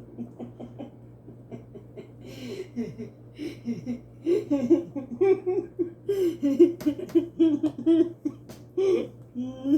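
A woman laughing and making short, broken vocal sounds over a steady low hum.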